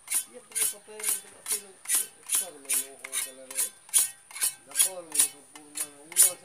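Hacksaw cutting through blue PVC pipe, with steady back-and-forth rasping strokes at about two a second.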